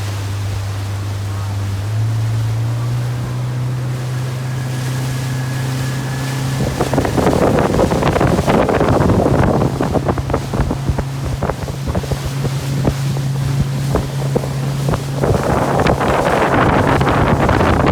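Motorboat engine running steadily, its pitch stepping up about two seconds in as it speeds up. From about seven seconds in, wind buffets the microphone in gusts over the engine and the rush of water.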